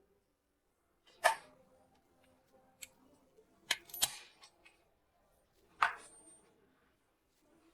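A few separate sharp clicks and knocks, one at a time, with near quiet between them; the one about four seconds in is a double knock with a short ringing tail.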